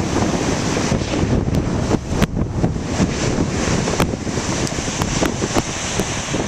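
Big ocean waves breaking and rolling in as a steady roar of surf, with strong wind buffeting the microphone and a few brief crackles.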